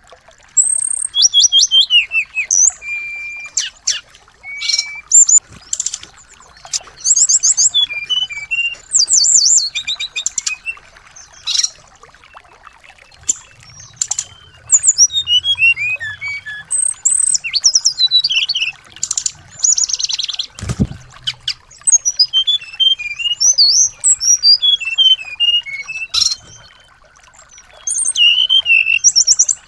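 Small songbirds chirping and trilling in quick, varied bursts of high notes with short pauses between, played as a song-tutoring recording for a white-rumped shama. A single low thump comes about two-thirds of the way through.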